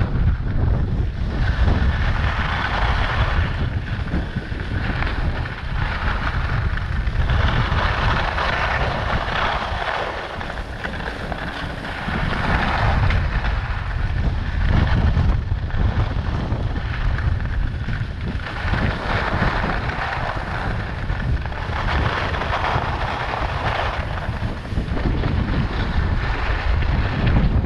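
Wind rushing over the microphone as a low, steady rumble while Rossignol Experience 84 AI skis hiss and scrape over groomed snow. The scraping swells up every two to three seconds with each linked turn.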